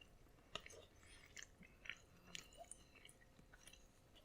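Faint chewing of a mouthful of macaroni and cheese, with small irregular wet clicks of the mouth.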